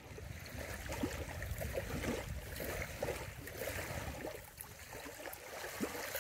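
Shallow water flowing and gurgling over rocks, with a low rumble underneath.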